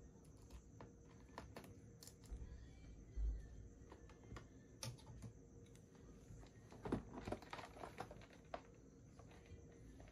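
Faint clicks and light taps of a Phillips screwdriver on the small screws holding a laptop's internal metal bracket, with a dull thump about three seconds in and a quick run of clicks about seven seconds in.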